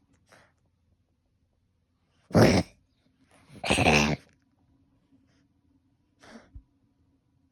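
Coughing: a faint cough near the start, two loud coughs about two and a half and four seconds in, the second one longer, and a smaller cough near the end.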